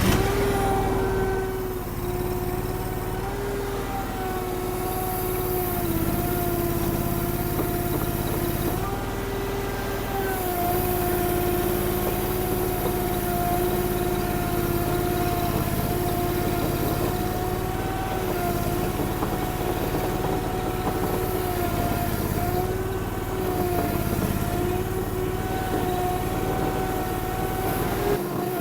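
Derette DRT450 mini skid steer's gasoline engine running hard, with a steady high whine over it. The pitch dips slightly and recovers every few seconds as the machine takes load pushing or pulling a heavy trailer.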